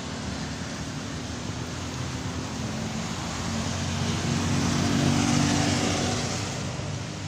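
Road traffic on a wet street: a steady engine hum under the hiss of tyres on wet tarmac. It swells to its loudest about five seconds in, then eases.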